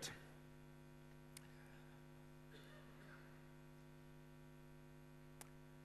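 Near silence with a steady low electrical hum, broken by two faint clicks, one about a second and a half in and one near the end.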